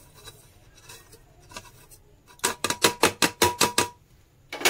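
A plate knocked repeatedly against the rim of an aluminium pressure cooker to shake off the last of the spices: a fast run of about ten sharp knocks over a second and a half, with the pot ringing. One more knock comes near the end.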